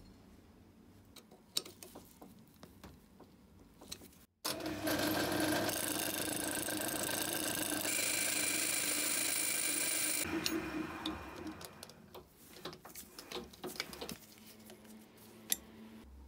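Small lathe running, with a cutting tool facing a rusty steel grinding disc from an antique pepper mill: a steady machine whir with a high metallic cutting tone, starting suddenly about four seconds in and winding down about ten seconds in. Faint clicks and knocks come before and after it.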